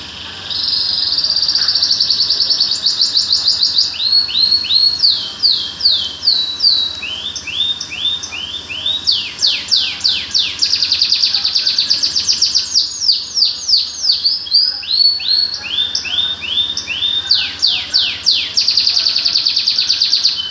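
Domestic canary singing a long, loud song of fast trills: runs of rapidly repeated notes and series of downward-sweeping whistles, changing from one repeated phrase to the next with hardly a pause.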